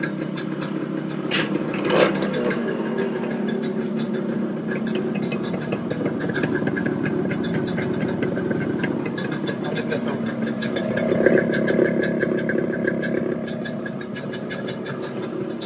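Yamaha RX 100's two-stroke single-cylinder engine idling, blipped louder about eleven seconds in, with a sharp knock about two seconds in. The exhaust note is muffled and lacks the clear metallic beat of a stock RX 100, which the mechanic puts down to something changed in the silencer's flute.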